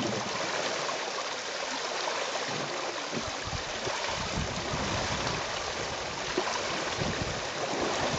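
Steady rush and splashing of river water stirred by African elephants wading and drinking, with irregular low buffeting from about three seconds in.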